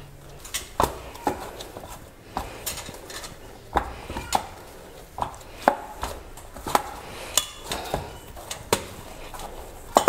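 Hands kneading steamed rice-flour dough on a steel plate: irregular knocks and taps as the dough and hands press against the metal plate, roughly one or two a second.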